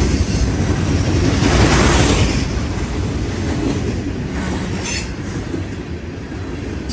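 Train rolling past close by: a steady rumble of wheels on rail that swells about a second and a half in, with a brief high squeak near the five-second mark.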